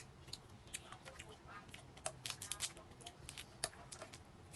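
Close-up eating sounds from a boiled crab meal: irregular sharp clicks and cracks of shell and mouth, bunching into a quick flurry about halfway through.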